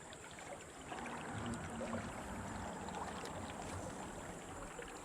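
Creek water running and sloshing, a steady rush that grows louder about a second in.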